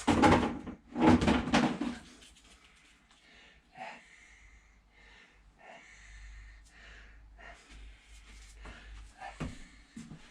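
Handling noise from work on the engine: two loud rustling, scraping noises in the first two seconds, then faint clicks and rustles.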